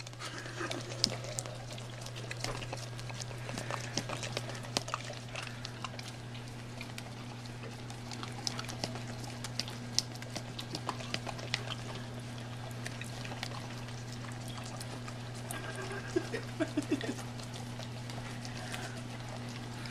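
Boxer dogs licking cream cheese off their noses and smacking their lips: a loose string of short wet clicks and smacks over a steady low hum.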